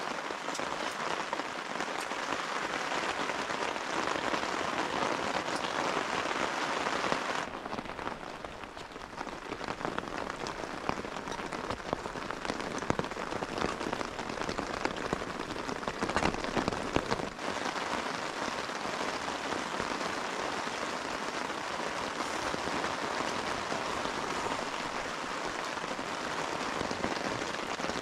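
Rain falling steadily on tent fabric, an even hiss of rain with many separate drop hits.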